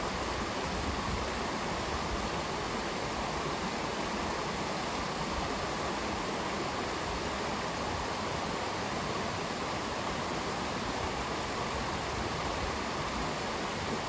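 Shallow rocky stream rushing and splashing over stones and small cascades, a steady, unbroken rush of water.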